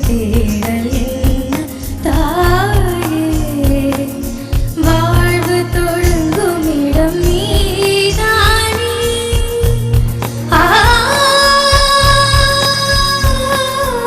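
A young girl singing an Indian film song over band accompaniment with a steady low beat; from about ten seconds in she holds one long note with vibrato.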